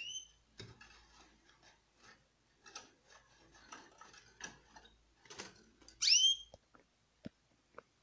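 Thin wire being bent and twisted around the bars of a wire cage to fasten a hemp-rope canary nest: scattered rustles, scrapes and small clicks, with two sharp clicks near the end. A canary gives a short rising chirp at the very start and again, louder, about six seconds in.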